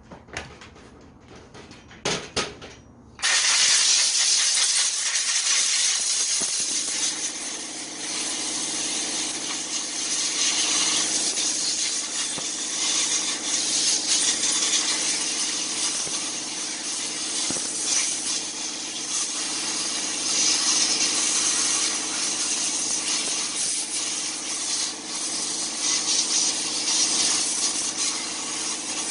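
Compressed-air blow gun hissing steadily as it blows caked site dust out of a hand grinder's housing. It starts about three seconds in, after a few handling clicks, and rises and falls a little as the nozzle moves.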